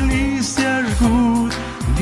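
Pop song playing: a pitched melody over a steady beat of about two strokes a second, in an instrumental passage between sung lines.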